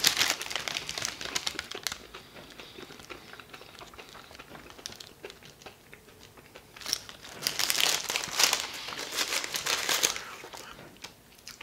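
White paper sleeve around a handheld fried pie crinkling as it is handled. The crackle comes in two spells, one at the start and another about seven seconds in that lasts about three seconds, with quieter rustling between them.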